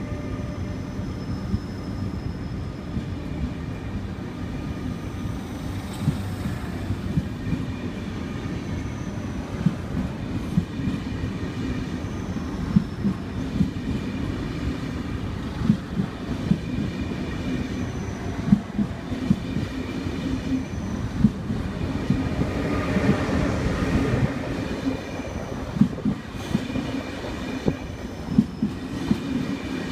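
ÖBB Railjet passenger coaches rolling past as the train pulls away: a steady rumble with the wheels clacking over the rail joints, the clacks coming more often as it gathers speed. A faint whine sits over it in the first few seconds.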